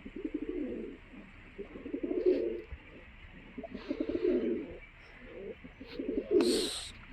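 Domestic pigeons cooing in about five low, rolling bouts, one after another. A short burst of hissy noise comes near the end.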